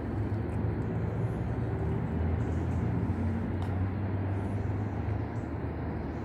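Steady low-pitched background hum and rumble, with a few faint clicks.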